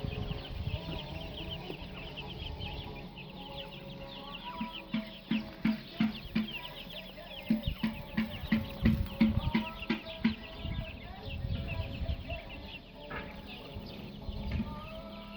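Chickens clucking in short repeated runs, loudest in the middle, over a constant stream of high, rapid cheeping calls.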